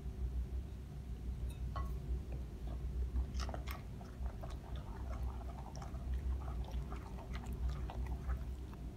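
Wooden spoon stirring whole-wheat flour into a wet dough mixture in a bowl: irregular soft, wet clicks and scrapes, over a low steady hum.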